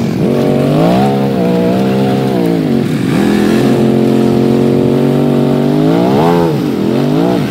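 Honda Rancher 420 ATV's single-cylinder engine revving up and down while pushing through deep, sticky mud. Revs climb near the start, sag about three seconds in, and blip up sharply and drop again around six seconds in.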